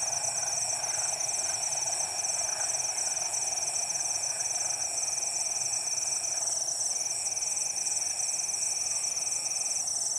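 Night chorus of crickets and other insects: a dense, rapidly pulsing high trill with a steady lower note beneath it that cuts out twice briefly. Under it, a faint low rumble from the departing train fades away over the first half.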